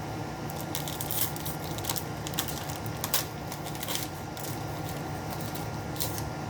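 Trading cards being handled and slid off one another while flipping through a pack, a scatter of short dry scrapes and clicks, over a steady low background hum.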